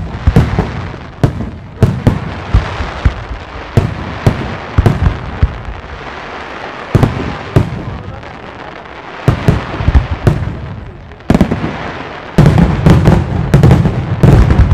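Aerial firework shells bursting one after another: sharp bangs with crackling between them. It thins out in the middle, then becomes a dense barrage of bangs in the last few seconds.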